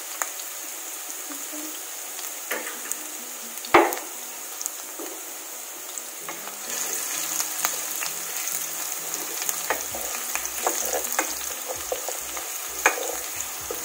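Chopped onions sizzling in hot oil in a frying pan, stirred with a wooden spatula that scrapes and knocks against the pan, with one louder knock about four seconds in. The sizzle grows a little louder about halfway through.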